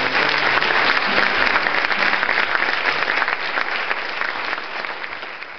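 An audience applauding steadily, easing slightly toward the end.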